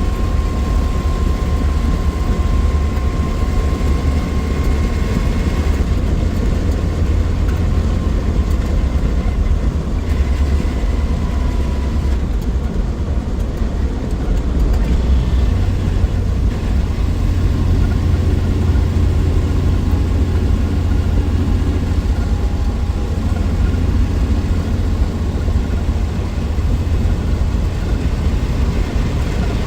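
1963 Willys Wagon on the move, its 230 OHC Tornado straight-six running steadily under road noise as a loud, even low rumble, with a faint whine that drifts in pitch.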